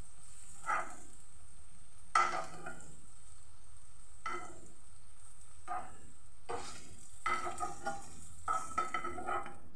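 A metal spoon scraping and knocking against a non-stick frying pan as fried paneer cubes are lifted out, in short bursts that come more often near the end. Under it, the leftover oil in the pan sizzles steadily.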